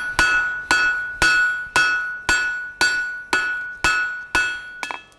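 Blacksmith's hand hammer striking a red-hot square steel bar on an anvil at a steady pace of about two blows a second, each blow ringing brightly, with a couple of quick light taps near the end. The blows are flattening the upset end of the bar into a two-sided upset.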